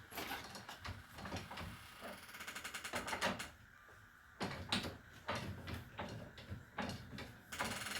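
Hand ratchet wrench clicking as it backs a large nut off a hydraulic cylinder's shaft: a quick run of clicks about two to three seconds in, then separate clicks and knocks.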